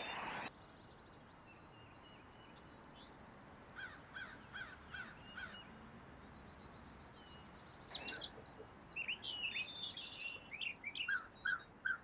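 Faint songbird calls: a high, buzzy trill, then a run of about six short repeated chirps, and several birds chirping in varied notes through the second half.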